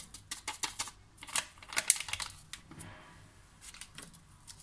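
Paper sachet of vanilla powder being flicked and shaken empty: a quick run of dry, crinkly clicks over about two and a half seconds, then a few fainter paper rustles.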